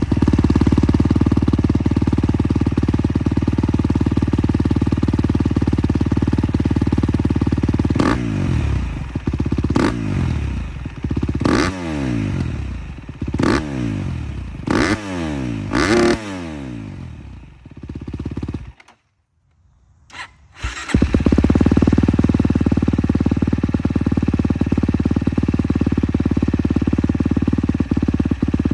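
KTM 250 XC-F's single-cylinder four-stroke engine running through an FMF PowerCore 4 exhaust: it idles steadily, then is blipped sharply about six times, the revs falling away after each blip. After a brief silent break it idles steadily again.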